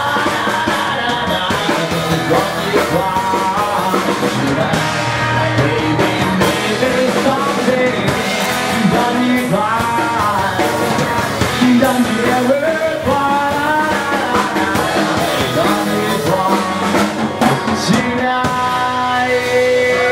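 Live rock band: a man singing into a microphone over his acoustic guitar, backed by a drum kit. He holds a long sung note near the end.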